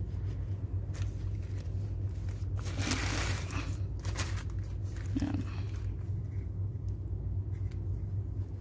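Handling noise from a new accelerator cable being moved over a plastic parts bag: a rustle about three seconds in and a shorter one a second later, over a steady low hum.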